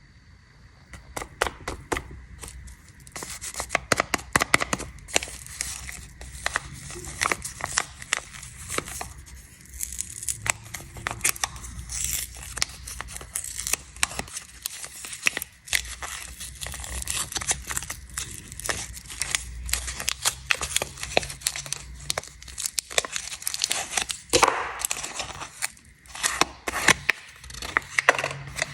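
Snack wrappers being unwrapped close to the microphone: a dense run of sharp crinkles, crackles and tearing sounds as the packaging is handled and torn open.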